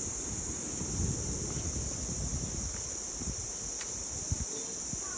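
A steady, high-pitched chorus of insects, with wind rumbling on the microphone.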